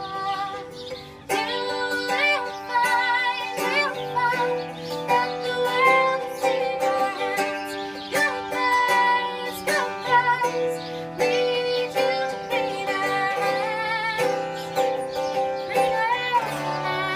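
Music: a female voice sings a melody with vibrato over plucked acoustic guitar.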